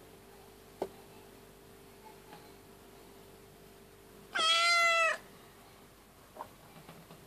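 A tabby cat in labour meows once, a clear, pitched call of just under a second. A soft tick sounds about a second in.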